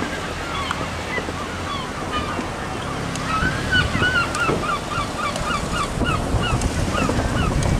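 A gull calling a long run of short, yelping notes that starts about halfway through, fast at first and slowing near the end, over steady wind and surf noise.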